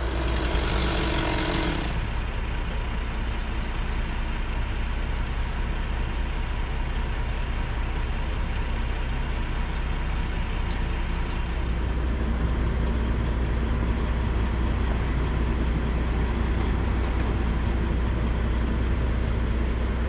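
Crane truck's diesel engine running steadily, a deep drone, with a brief loud rush of noise in the first two seconds.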